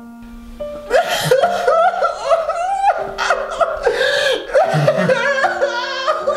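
A man sobbing and wailing in bouts, his voice wavering up and down, starting about a second in over held piano notes.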